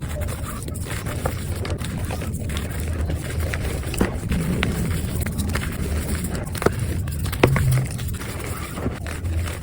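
Pink reformed gym chalk being crushed and crumbled by hand: a continuous run of soft, crunchy crumbling with scattered sharper cracks, the loudest about three quarters of the way through.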